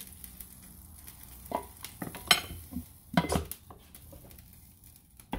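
A ladle clacking against a plastic blender jar as meat broth is ladled into blended chile, then the blender lid being fitted on. There is a series of sharp knocks, the loudest a little past two seconds in.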